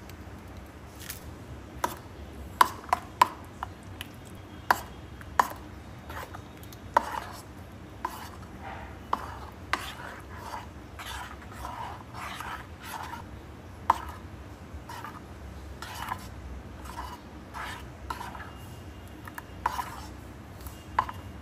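Metal spoon stirring thick mango pulp in a bowl: a wet swishing, with sharp clicks at irregular intervals where the spoon knocks against the bowl, several of them loud.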